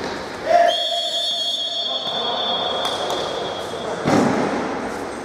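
Referee's whistle blown in one long steady blast of about three seconds, followed right after it stops by the thud of a ball being struck.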